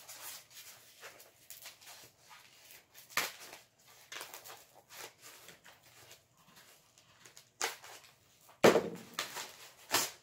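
Packaging being handled and opened by hand: a white foam box and cardboard rubbing, rustling and knocking in irregular short bursts, with a sharper knock about three seconds in and the loudest one near the end.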